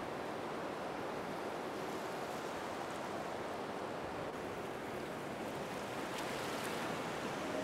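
Steady rushing water noise with no distinct events.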